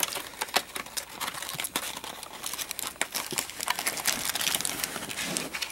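Plastic wrapping and foil booster packs crinkling and crackling as hands handle a freshly unwrapped trading card box: a continuous run of irregular sharp crackles.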